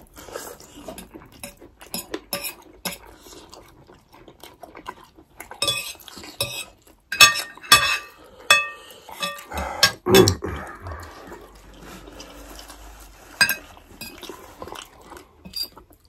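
Metal forks and spoons clinking and scraping against ceramic plates while two people eat noodles. There are several sharp, ringing clinks around seven to nine seconds in, and a duller, heavier knock about ten seconds in.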